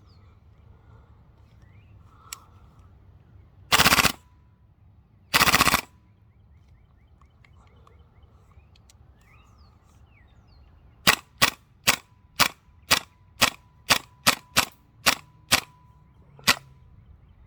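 Tokyo Marui MWS gas blowback airsoft rifle firing on propane: two longer, drawn-out blasts about four and five and a half seconds in, then a string of about a dozen sharp semi-auto shots, roughly two a second, with the bolt cycling on each. The last shot empties the magazine and the bolt locks back.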